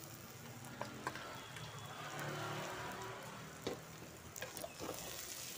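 Soaked rice, jackfruit and spices sizzling in ghee in a pressure cooker, with a few short scrapes and taps of a spatula against the pot.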